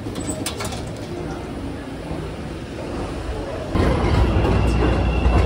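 Subway train running along the station platform: a loud low rumble comes in suddenly about two-thirds of the way through, with a steady high whine over it.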